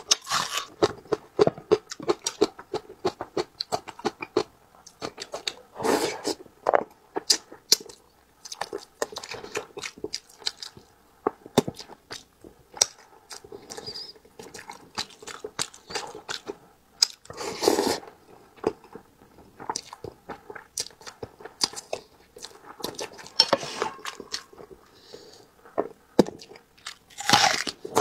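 Close-miked chewing of a person eating braised fish, with crunchy bites and many small wet clicks. A few louder bursts come about every ten seconds.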